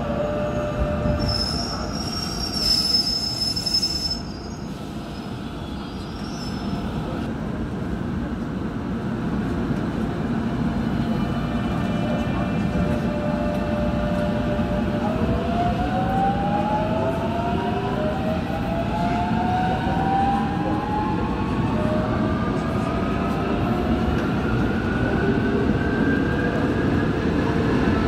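Incheon Metro Line 1 train's traction motors whining under their Alstom IGBT inverter, over a steady wheel and rail rumble. The whine holds one pitch for the first half, then several tones climb together as the train accelerates. A brief high whistle with a hiss comes a second or two in.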